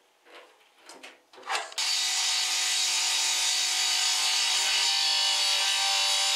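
A few light knocks and slides as the table saw's fence is set, then about two seconds in a steady, loud sound of the table saw cutting lengthwise through a chipboard panel.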